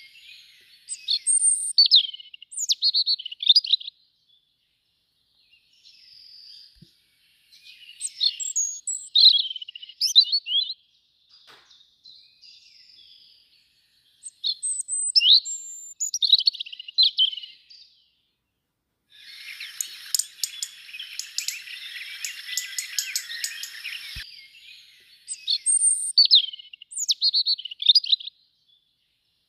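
European robin song: short, high, thin warbling phrases of a few seconds each, repeated after pauses. Partway through comes a few seconds of close rustling and wing flutter, louder than the song's background and full of fine clicks.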